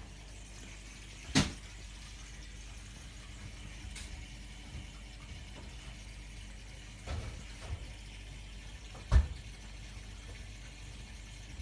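Steady low mechanical hum, with a sharp knock about a second and a half in, a louder one about nine seconds in, and a few softer knocks between.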